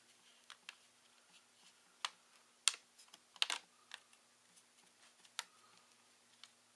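Irregular small clicks and taps from handling the parts of an opened ThinkPad T61 laptop, about a dozen sharp ticks, the loudest a cluster near the middle.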